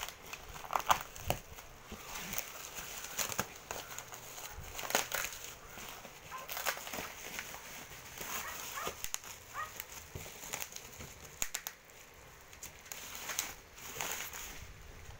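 Plastic wrapping and bubble wrap crinkling and rustling as a cardboard box is unwrapped by hand, with irregular sharp crackles throughout.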